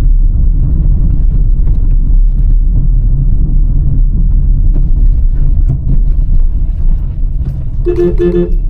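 A car driving along a road: steady low engine and road rumble. About eight seconds in comes a short, steady tone lasting about half a second.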